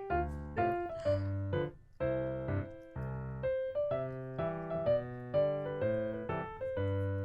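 Background piano music: a run of short notes over low chords repeating about every half second to a second.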